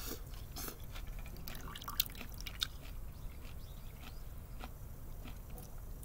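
A person eating miso soup with chopsticks: sipping from the bowl and chewing, with soft wet mouth sounds and a few sharp clicks.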